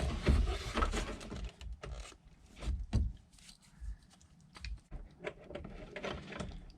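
Scattered clicks, knocks and rubbing as an instrument cluster is worked back into a dash panel, loudest near the start and about three seconds in.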